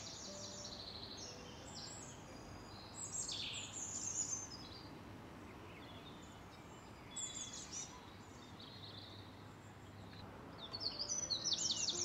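Small songbirds singing in quick, high chirping phrases that come in bursts about three, seven and eleven seconds in, over a faint steady hiss of outdoor ambience.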